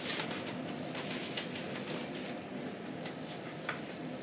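Light rustling and sliding of a cardboard folder and sticker sheets being handled on a table, a few soft scrapes over a steady background hum.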